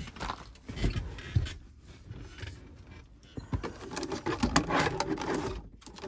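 Plastic dashboard trim panel and its wiring being handled and unhooked: irregular scraping, rustling and small clicks. They are busiest from about four to five and a half seconds in.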